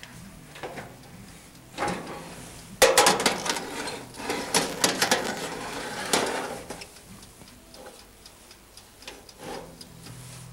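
Knocks and clattering of cookware as a dish is put into an oven to roast, busiest from about three to six and a half seconds in, with a few lighter ticks after.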